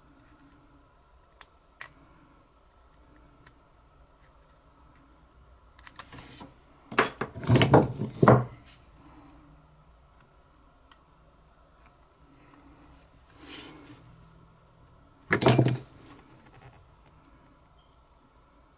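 Small metal tools and parts being handled: a few light clicks, then a loud clattering rattle of metal about seven seconds in and another shorter one near the end.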